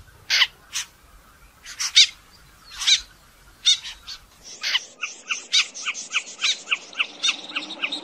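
Snipe calling: harsh, rasping single notes at irregular intervals, then from about halfway a rapid, even series of about four short notes a second.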